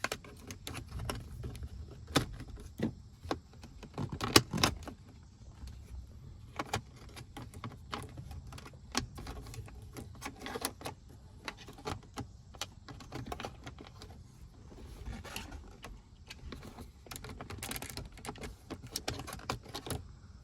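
Hand work on a BMW E39's plastic front cup holder assembly in the dashboard: irregular sharp plastic clicks and rattles with some metallic tool clinks, a louder cluster about four and a half seconds in.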